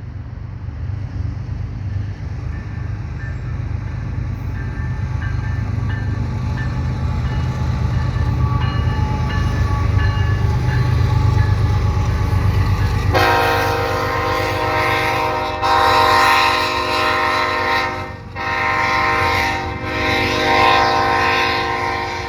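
GE ES44AC diesel locomotives leading a freight train, approaching with a deep engine rumble that keeps growing louder. About 13 seconds in, the locomotive's air horn starts a prolonged blast that runs on with only a couple of brief breaks. The blast is apparently a salute to railfans rather than a warning.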